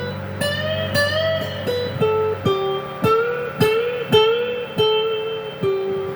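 Stratocaster electric guitar played with two pickups combined in an in-between switch position, through a Sonicake Blue Screamer overdrive pedal into a clean amp channel. Single-note lead licks with string bends and vibrato, over a low held note that stops about two and a half seconds in.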